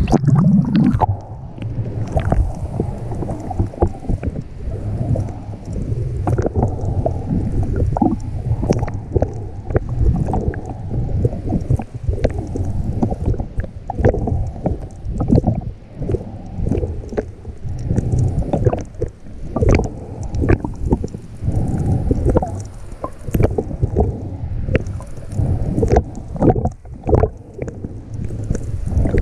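Muffled underwater sound from a GoPro in its housing on a full-face snorkel mask: water rushing and sloshing against the housing, with many scattered clicks and crackles. The treble cuts out right at the start as the camera goes under the surface.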